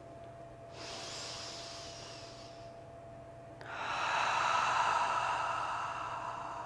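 A woman's deep, audible breathing: a soft breath in lasting about two seconds, then, about three and a half seconds in, a longer and louder breath out that slowly fades.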